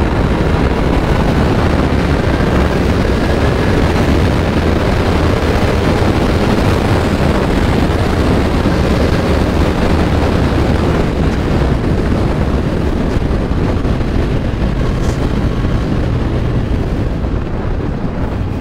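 Kawasaki Z900's inline-four engine running at high speed under heavy wind rush on the microphone, easing slightly toward the end as the bike slows.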